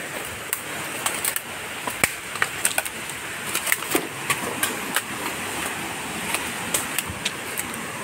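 Footsteps crunching through dry leaf and bamboo litter, a string of irregular sharp crackles and snaps, over the steady rush of a stream.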